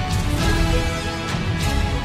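Music, with sustained melody notes over repeated drum hits.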